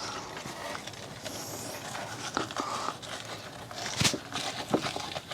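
Hands squeezing and kneading a rubber washing-machine drain hose clogged with gritty sand, giving soft rubbing and rustling with faint clicks and one sharper click about four seconds in.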